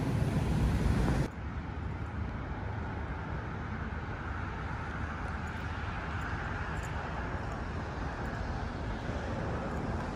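Road traffic noise: a louder rush of nearby traffic for about the first second, then it drops suddenly to a steady, quieter hum of traffic.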